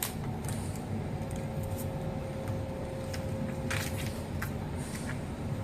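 Protective plastic film being peeled off a new laptop LCD panel, giving scattered small clicks and crackles, with a longer crackle near the end. They sit over a steady low hum.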